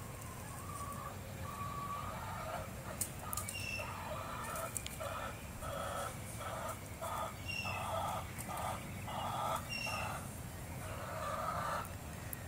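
A hen clucking in a steady, rhythmic run of short calls, about two a second, that starts about two seconds in and stops near the end. A few faint high chirps come in between the clucks.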